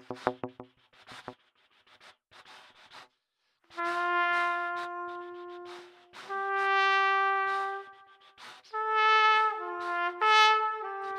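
Solo trumpet playing long held notes. The first note enters about a third of the way in, the next is held a step higher, and near the end the notes change more often. The opening second holds the tail of a fast run of short pulses.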